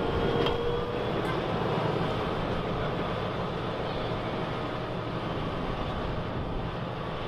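Fendt 936 Vario tractor's engine running steadily under load as it pulls a ridger through the soil, moving away and slowly fading.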